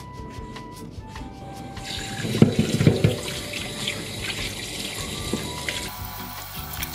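Light background music, then about two seconds in a kitchen tap starts running into a plastic bowl in a stainless steel sink, with the loudest splashing just after it starts as hands rinse chicken livers in the water. The water keeps running and sloshing.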